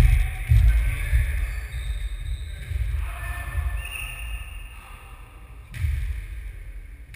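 A ball game in a large sports hall: the ball thudding and bouncing on the wooden floor, over a steady low rumble that swells in the first second and again about six seconds in.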